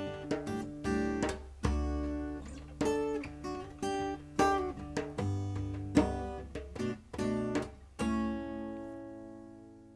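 Acoustic guitar playing a run of strummed and picked chords, ending on a last chord about eight seconds in that rings and slowly fades away.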